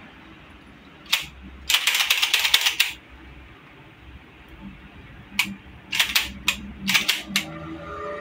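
Aerosol gun-cleaning spray hissing in bursts onto a shotgun: one short squirt, then a longer spray of about a second, then after a pause a run of several short squirts.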